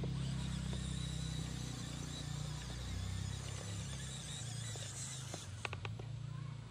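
WPL D12 RC mini pickup's electric motor and metal-driveshaft drivetrain humming low and unevenly as the truck crawls at low speed, with a few sharp clicks a little over five seconds in.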